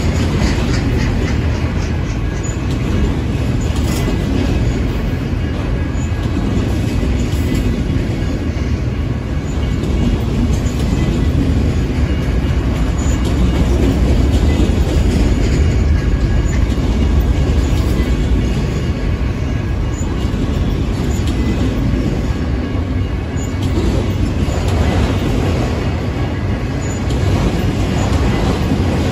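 Freight train of autorack cars rolling past: a loud, steady rumble of steel wheels on the rails, with faint clicks along the way.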